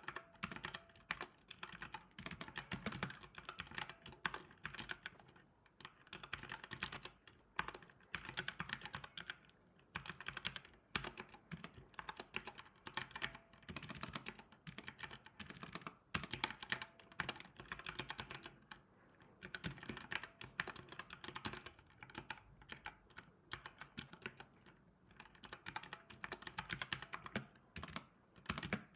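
Typing on a compact computer keyboard: rapid key clicks in runs of a few seconds, broken by short pauses.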